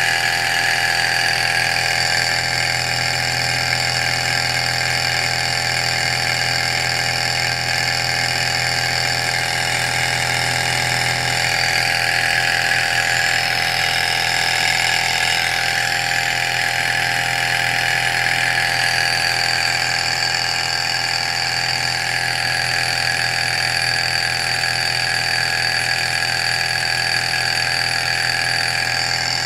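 Sunnytech model Stirling (hot-air) engine, fired by an alcohol lamp, running steadily at speed, a continuous mechanical running sound with a few constant tones.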